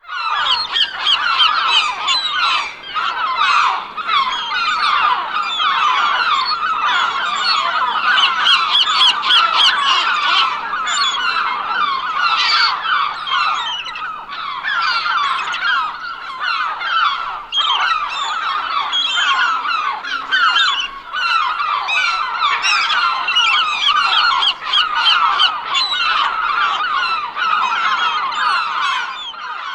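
A flock of seagulls calling continuously, many overlapping cries and squawks at once.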